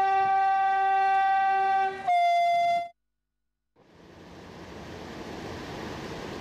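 Train horn sounding one long, steady blast that drops slightly in pitch about two seconds in and stops just before three seconds. After a short silence, a steady rushing noise fades in.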